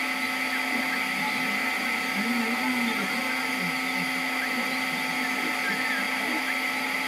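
CNC 3018 engraving machine with a 5.5 W diode laser module at work: a steady whirring hum, with the stepper motors whining in short glides that rise and fall in pitch as the head traces letters.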